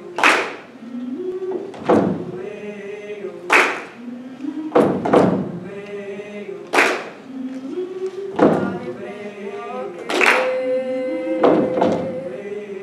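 Treble choir singing slow, sustained chords that step up and down in pitch, punctuated by sharp body-percussion hits about every one and a half seconds.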